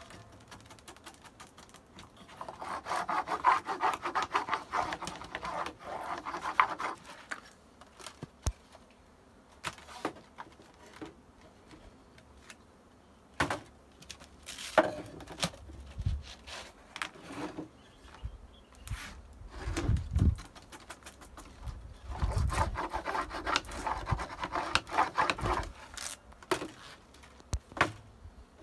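A hand tool rubbing and scraping fast along a beeswax foundation sheet to press its edge onto a wooden hive-frame bar, in two spells of a few seconds each: one about two seconds in and one near the end. Scattered wooden knocks and clicks fall between them.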